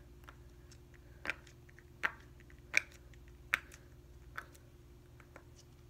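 Silicone pop-it fidget toy having its bubbles pressed in quick succession: a run of short soft pops and clicks, a louder one about every three quarters of a second among fainter ones.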